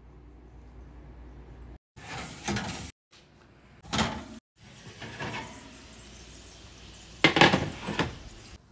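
Oven door and a metal sheet pan knocking and scraping against the oven rack in a few short bursts. The loudest comes near the end, as the roasting pan is pulled out of the oven.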